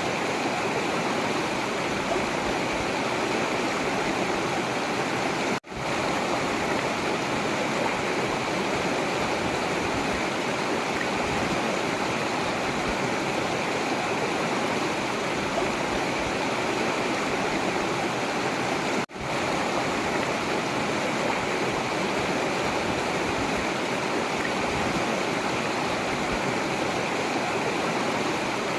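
Forest river flowing, a steady, even rush of water. Twice the sound drops out for an instant and comes straight back.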